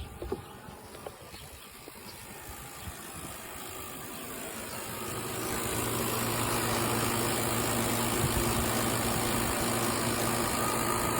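GE Profile ClearView inverter window air conditioner starting up. Its fan and compressor hum swells over several seconds, then runs steadily as a low hum with a few steady tones.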